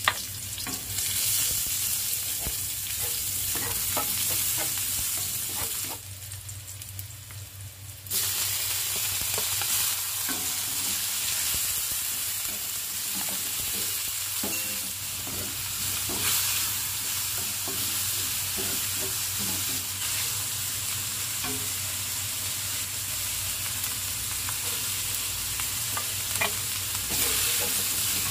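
Shallots, garlic, chilies and chicken pieces sizzling as they stir-fry in a honeycomb-textured wok, with a wooden spatula scraping and turning them. The sizzle is steady apart from a quieter gap of about two seconds roughly a quarter of the way through.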